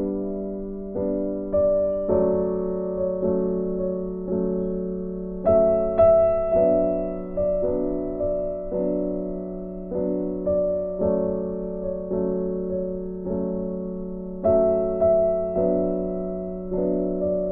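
Background music: a gentle piano piece of soft, evenly paced notes over a sustained low tone.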